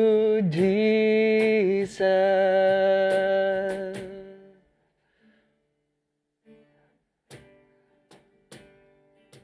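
A singer holds the last note of a worship-song line over acoustic guitar, the voice wavering. A guitar chord then rings and fades away about four seconds in, followed by a few soft plucked notes and faint clicks.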